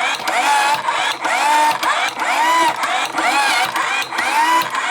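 Homemade washing machine running: a repeating whine that rises and falls in pitch about twice a second, in an even rhythm.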